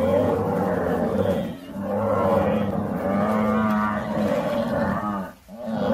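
African buffalo bellowing: long, drawn-out calls, a short one at first, then one lasting about three seconds, with another beginning near the end.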